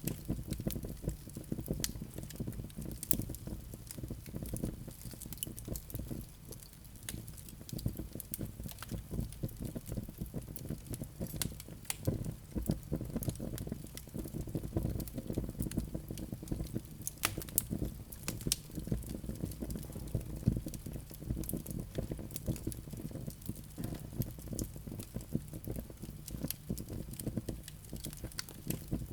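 Wood fire crackling, with frequent sharp pops and snaps over a steady low rumble of burning.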